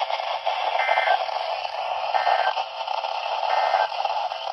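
EAS end-of-message data bursts: three short warbling digital tone bursts about 1.3 seconds apart, signalling the end of the alert. They play over steady radio hiss.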